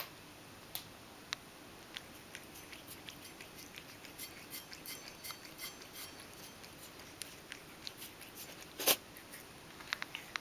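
Ragdoll cat lapping milk from a stainless steel bowl: a run of quick, wet tongue clicks through the middle, with scattered clicks either side and one louder knock about nine seconds in.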